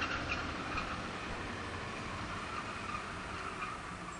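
Train running along the track, its wheels clicking over rail joints in the first second, then fading away as it passes.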